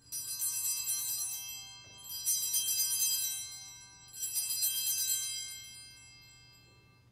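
Altar bells (Sanctus bells) rung three times, about two seconds apart, each ring a bright jangle of several small bells that fades out. They mark the elevation of the host at the consecration.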